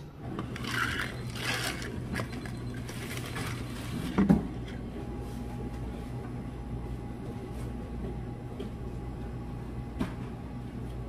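A spoon stirring a drink in a tall glass for the first few seconds, then a single sharp knock about four seconds in, all over a steady low hum of café equipment; a faint thin steady tone joins from about five seconds.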